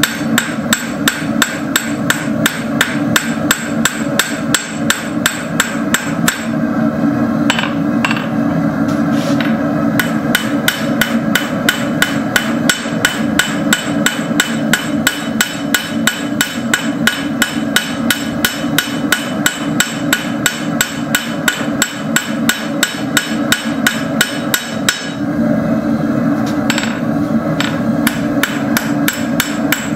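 Hand hammer striking hot steel rod on an anvil in a steady rhythm of about three blows a second, pausing twice for a few seconds. A steady rushing noise, most likely the lit forge, runs underneath.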